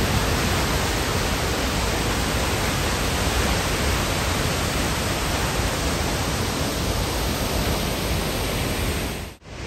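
Victoria Falls pouring down: a steady, even rushing noise of falling water that drops out for a moment near the end.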